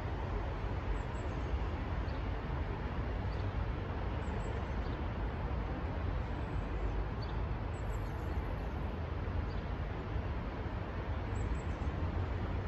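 Steady low rumble of distant city traffic outdoors, with a few faint high chirps scattered through it.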